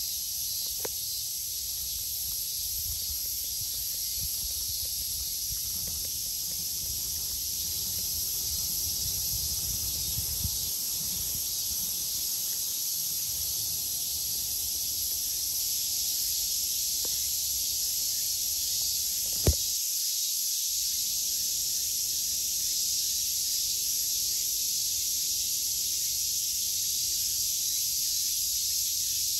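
Cicadas droning in a steady, high, continuous hiss. A single sharp click sounds about two-thirds of the way through.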